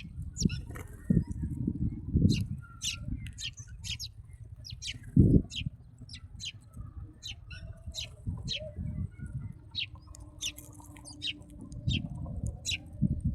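Small birds chirping, many short high calls repeating throughout, over a low rumble with irregular thuds, the loudest thud about five seconds in.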